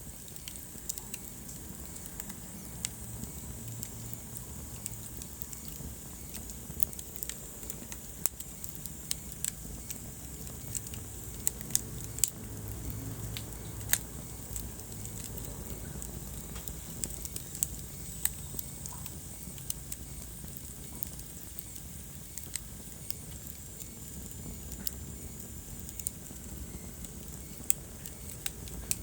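Wood fire burning in a fireplace, crackling: irregular sharp pops and snaps, some louder than the rest, over a steady low rumble of the flames.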